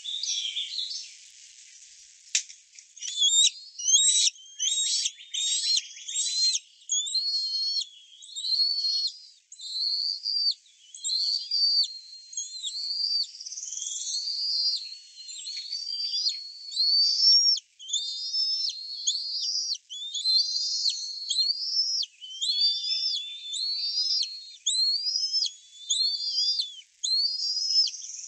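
Bald eagles calling at the nest. A rapid chattering series comes in the first few seconds, then a long run of repeated high, arching whistled notes, about one or two a second.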